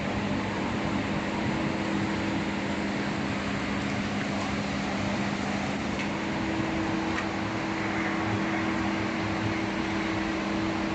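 Heavy rain hissing steadily over the low, steady two-tone hum of a running vehicle.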